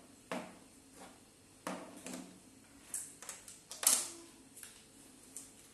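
Plastic interlocking building blocks clacking as pieces are handled and pressed together: a string of sharp clicks, the loudest about four seconds in.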